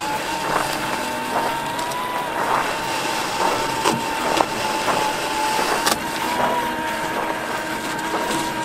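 Axial SCX6 1/6-scale RC crawler's electric motor and drivetrain whining steadily as it drives its plow through snow, the whine wavering slightly in pitch, with scattered short crunching clicks.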